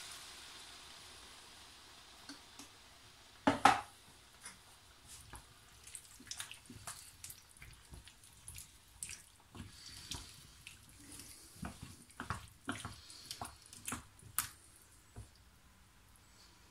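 Wooden spatula stirring diced root vegetables and blocks of broth in a large roasting pan: scattered soft scrapes, taps and wet clicks, with one louder double knock about three and a half seconds in.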